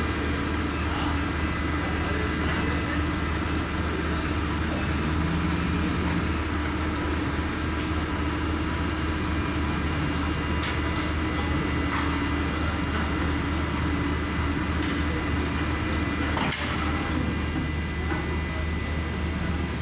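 An engine running steadily at idle, with a continuous low drone and a steady hum. A single sharp knock sounds about three quarters of the way through.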